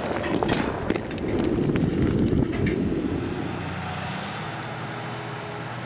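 Rumble and clatter of a quarry blast's rock and debris settling, with scattered knocks early on. About three and a half seconds in it gives way to the steady running of a large wheel loader's diesel engine.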